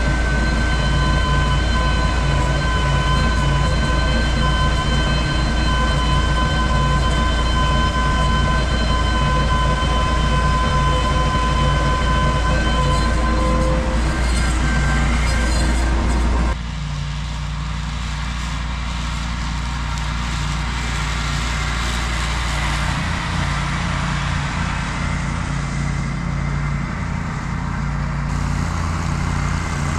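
Ventrac tractor with a Tough Cut mower running: a steady engine drone with a thin whine over it. A little past halfway the sound suddenly drops in level and changes, then builds back up slowly.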